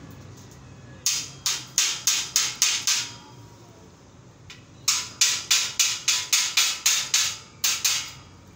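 A hammer striking a square-tube steel frame: a run of about seven sharp blows, a pause of about two seconds, then a longer run of about a dozen, roughly three a second, each ringing briefly.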